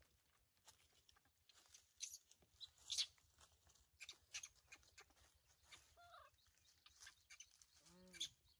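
Faint outdoor quiet with scattered rustles and clicks, broken by two short animal calls: a falling one about six seconds in and a lower, arched one near the end.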